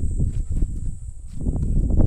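Footsteps on a sandy path through dry brush: irregular dull thuds and scuffs with some rustling, easing briefly about a second in.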